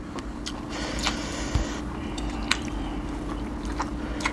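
Eating sounds from people eating by hand: chewing and soft wet squishing, with scattered small clicks of food and fingers against plates, and a brief hiss about a second in.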